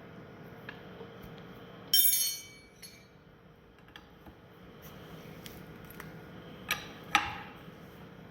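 Metal tools and parts clinking and knocking: small clicks, one loud ringing clank about two seconds in, and two sharper knocks near the end.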